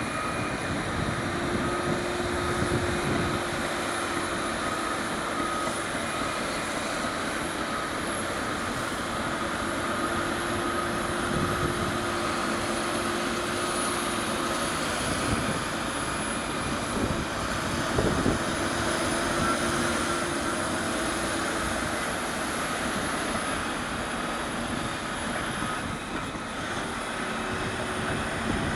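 Caterpillar D6R bulldozer's diesel engine running steadily under load, with the rattle and clank of its steel crawler tracks and a few sharper knocks, the loudest about two-thirds of the way through.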